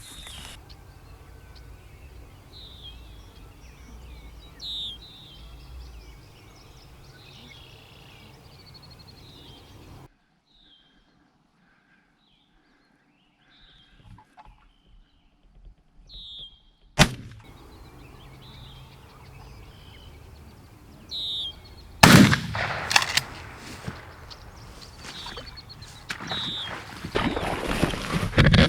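Songbirds singing in the background, then a single shotgun blast at a wild turkey gobbler, followed by several seconds of loud rustling and thrashing. A shorter sharp crack comes a few seconds before the blast, after a brief stretch of near silence.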